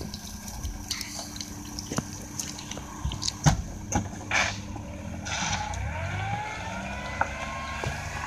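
Shiba Inu crunching a Chew Dent EX dental chew: a few sharp separate crunches in the first half. From about halfway a steadier noise with a slowly rising tone sets in over a low rumble.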